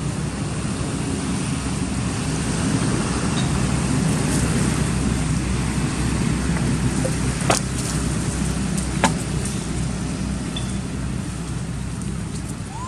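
Steady low outdoor rumble with two sharp clicks about a second and a half apart near the middle.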